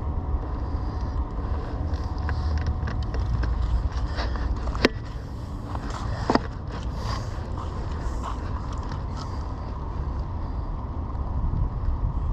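Steady low rumble of wind buffeting an outdoor action-camera microphone. About halfway through come two sharp clicks a second and a half apart, with a few fainter ticks around them, as the camera and gear are handled.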